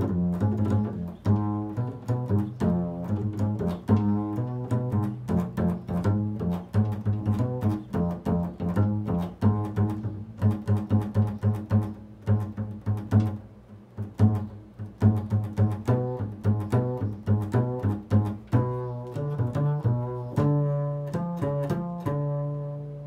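Double bass played pizzicato: a fast improvised run of plucked notes built on the interval of a third, each note starting sharply and dying away quickly. Near the end it settles on a longer held note that rings and fades.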